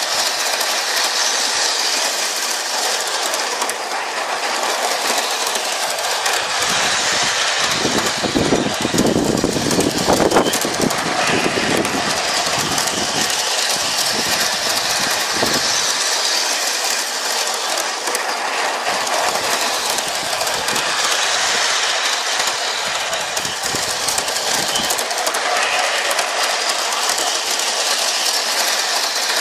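Bachmann Big Hauler G-scale 4-6-0 model locomotive running on garden-railway track, its wheels and running gear clattering steadily over the rails, heard from a car riding in the train just behind the tender. A heavier rumble comes in for a few seconds about a quarter of the way in.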